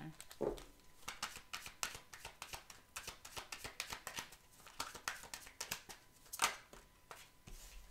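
A deck of zodiac cards shuffled by hand: a run of quick card flicks and rustles, with one louder snap about six and a half seconds in.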